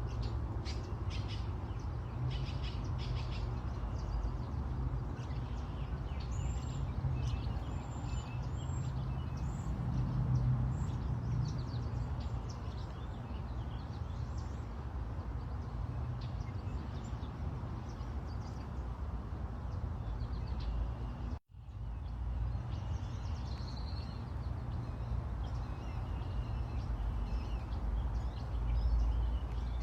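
Small birds chirping and calling in short high notes, with a run of three arched, whistled notes about seven seconds in, over a steady low rumble. The sound cuts out for an instant about two-thirds of the way through.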